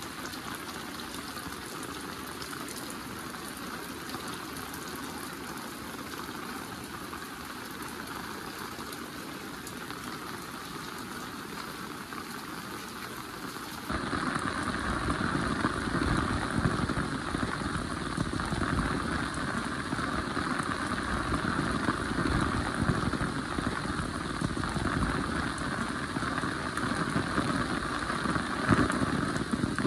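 Heavy rain falling steadily as an even hiss. About halfway through it switches suddenly to louder, fuller rain with much more low-end rumble.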